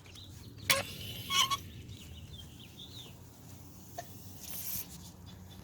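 Outdoor water faucet turned on, with a click and water running through a garden hose until it fills up against a closed spray nozzle, giving a brief hiss near the end. A few short bird chirps in the background.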